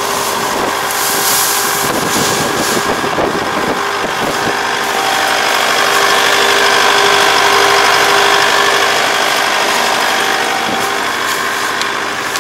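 Rice combine harvester's engine running steadily, with a steady whine and a slight swell in the middle, while jammed straw is cleared from its four-row reaping header. Some rustling and crackling in the first few seconds.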